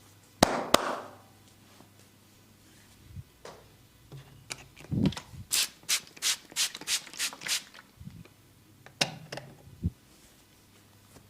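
Sharp snaps from a barber's massage cracking technique. Two loud cracks come about half a second in. After a soft thump, a quick run of about nine snaps follows, roughly four a second, and two more come near the end.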